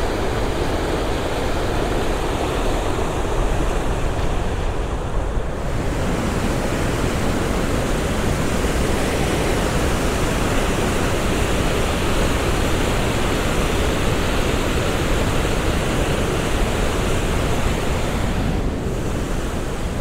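Lower Düden Waterfall, the Düden River pouring over a sea cliff: a loud, steady, powerful rush of falling water. Its tone shifts slightly about six seconds in and again near the end.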